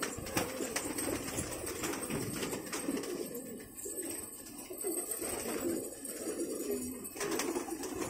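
A loftful of Banarsi Lalband Ghaghray fighter pigeons cooing, many calls overlapping continuously.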